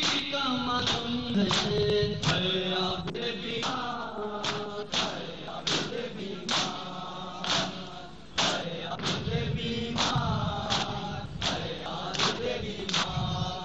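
Noha chanted by a male reciter and a group of men, kept in time by the thud of hands striking bare chests in matam. The beats fall steadily, a little faster than one a second.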